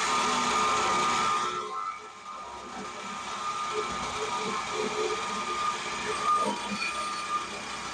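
Battery-powered cutting tool running while it cuts through a truck's exhaust pipe from underneath: a harsh, hissy cutting noise for the first second and a half, then a quieter, steadier whine.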